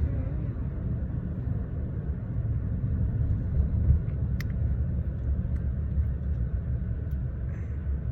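Car cabin noise while driving: a steady low rumble of road and engine, with one brief click about four and a half seconds in.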